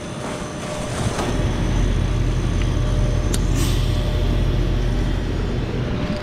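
Heat pump outdoor unit running in defrost mode, a steady low rumble with a faint constant hum. The rumble swells about a second in and eases near the end.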